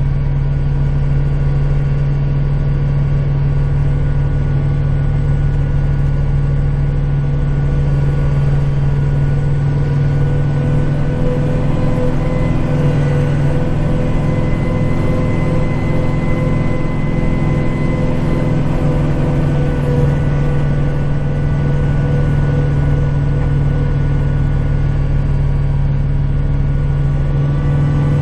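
Kubota tractor's diesel engine running steadily under load, heard from inside the cab, with a faint higher whine for a few seconds midway.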